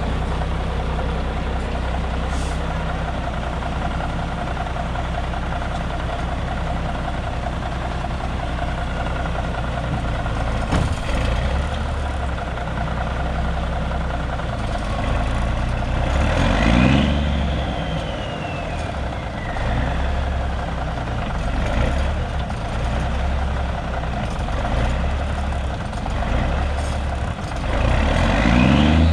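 Cummins Big Cam II 350 diesel of an International 9670 Eagle cabover semi running at a steady idle after a cold start, then revving up twice, with a high whistle that winds down after each rev.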